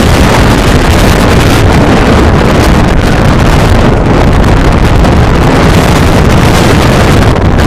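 Strong wind buffeting a phone's microphone: a loud, steady rumble with no letup.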